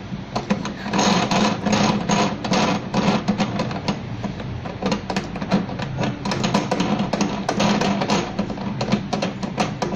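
Background music with a rapid percussive beat over steady held tones.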